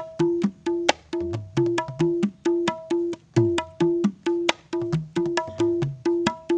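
A pair of jackfruit-wood ketipung hand drums played in a steady, fast groove: the small drum gives a repeated ringing high note and the large drum deep strokes that bend in pitch.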